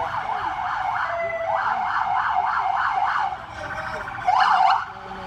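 Police siren yelping in fast rising-and-falling sweeps, about four a second, with a short break about a second in. A single much louder siren sweep comes near the end.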